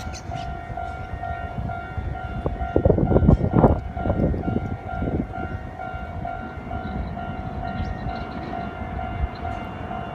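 A level-crossing warning bell rings in a steady repeating tone. A heavy double-trailer truck passes through the crossing, loudest about three to four seconds in, with rumbling and knocking from its wheels.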